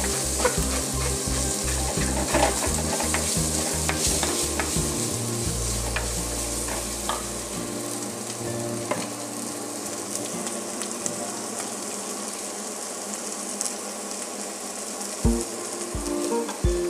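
Sliced onions and green chillies frying in oil in a clay pot, sizzling steadily while a wooden spoon stirs and scrapes through them. The stirring strokes are frequent in the first half and thin out after that, and the sizzle eases a little; there are a couple of knocks near the end.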